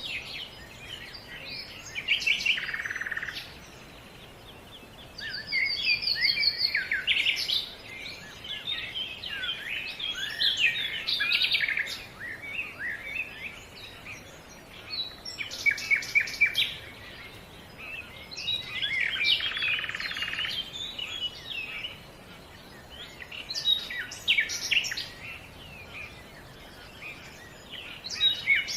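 Songbirds singing in repeated bursts of quick chirps and trills, broken by short pauses with a faint steady background hiss.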